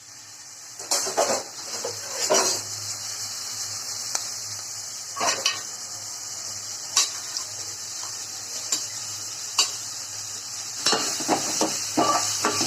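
Food frying and sizzling steadily in a cooking pan while a spoon stirs it, with irregular scrapes and knocks of the spoon against the pan that come faster near the end.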